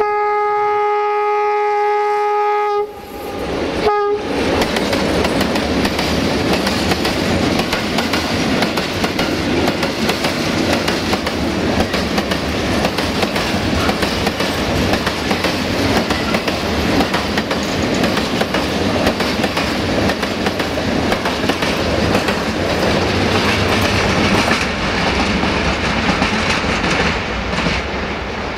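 Air horn of a CFR class 060-DA diesel-electric locomotive sounding one steady single-note blast of nearly three seconds, then a short toot about a second later. The train's open freight wagons then roll past close by: steady wheel-on-rail noise with the clatter of wheels over rail joints.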